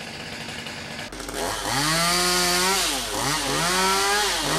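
Two-stroke chainsaw revved up to full throttle twice, each time climbing in pitch, holding for a second or so and dropping back, with a short blip of throttle at the end.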